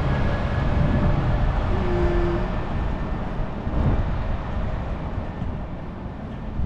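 City street traffic: a steady low rumble, with a brief steady tone about two seconds in.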